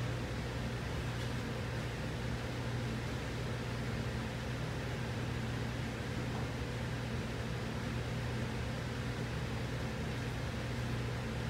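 Steady low mechanical hum over an even hiss, unchanging throughout.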